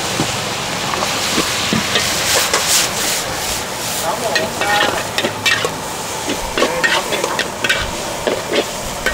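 Stir-frying in a wok: steady sizzling, with many short scrapes and knocks of a metal spatula against the pan.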